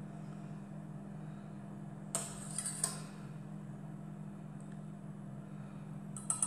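Wire whisk clinking against the side of a stainless steel saucepan of chocolate glaze: one clink about two seconds in, a few more just after, and a quick run of clinks near the end, over a steady low hum.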